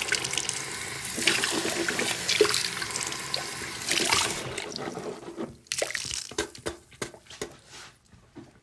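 Running water splashing into a bathroom sink while rinsing after brushing teeth. It stops about four and a half seconds in, leaving a series of separate drips and small splashes that thin out and fade.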